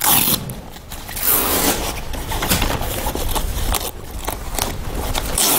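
Hook-and-loop (velcro) straps on a Peak 270-degree awning's storage cover being ripped open one after another, a series of rasping tears.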